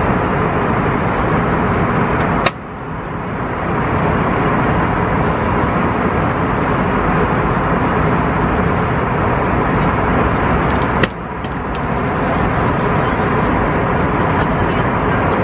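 Steady rushing noise of an airliner cabin in flight, from the engines and airflow. It is broken twice by a sharp click, and after each click the noise drops briefly and builds back over about a second.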